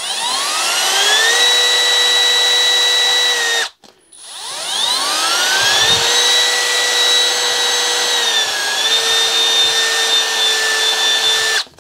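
Milwaukee cordless drill spinning a chrome socket while emery cloth is pressed against it to polish the finish. The motor winds up to a steady whine over a rubbing hiss and stops just before four seconds in. It then winds up again, dips briefly partway through, and runs until it cuts off near the end.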